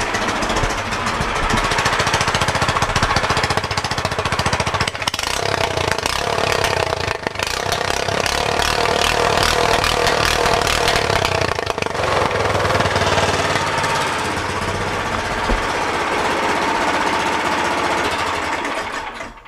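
Predator 212 single-cylinder four-stroke engine on a mini bike running, a fast, steady pulsing beat through its freshly finished exhaust pipe.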